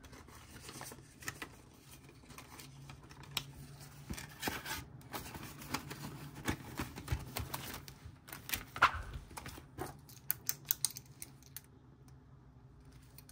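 Paper cash and cash envelopes being handled as two $20 bills are put into a savings envelope: soft rustling with scattered light clicks and taps, thickest a little past the middle.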